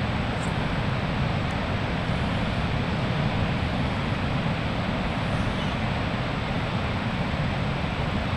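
Wind blowing on the microphone, a steady low rushing noise, over the wash of surf on a sandy beach.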